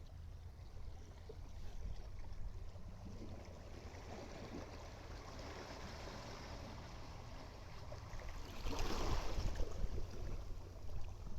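Small waves washing and bubbling close by, a steady churning of water with a low rumble underneath. The wash swells about four seconds in, and a louder wave breaks about nine seconds in.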